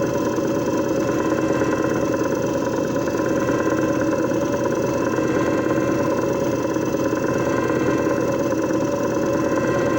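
JFJ Easy Pro disc repair machine running, its motor whirring steadily with a few constant tones over a dense low rumble.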